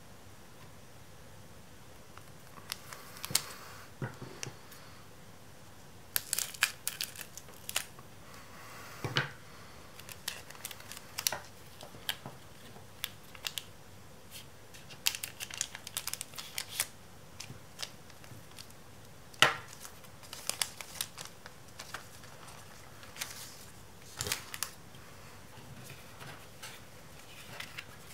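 Foil wrapper of a Pokémon booster pack crinkling in irregular crackles as the cards are slid out of it and handled. The loudest crackle comes about two-thirds of the way through.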